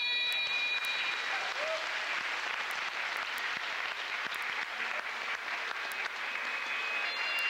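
Audience applauding. Bagpipe music ends about a second in, and steady piping tones come back near the end.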